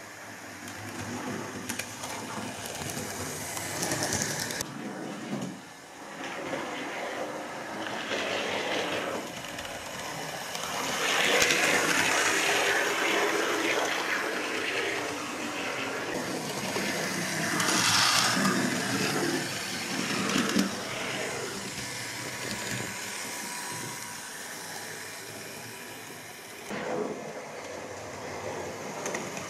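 Model Class 56xx tank locomotive running around an OO-gauge layout: its small electric motor whirring and its wheels rattling over the rails, growing louder twice as it comes close.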